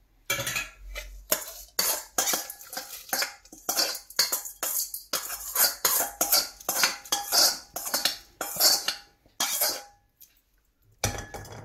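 A metal spoon clinking and scraping against a small kadai and the rim of a pressure cooker as ghee tempering is scraped out onto cooked ven pongal. Quick clinks for about ten seconds, a brief pause, then one last knock near the end.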